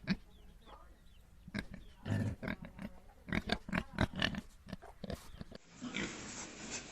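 Pigs grunting in a quick run of short, separate grunts. Near the end the sound changes to a steadier, busier background of pig noise.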